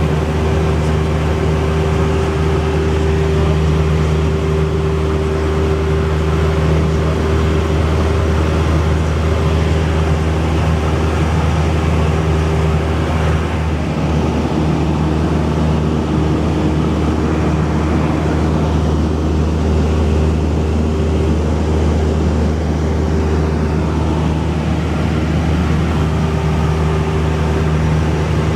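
Cessna 172's piston engine and propeller running at a steady, even drone.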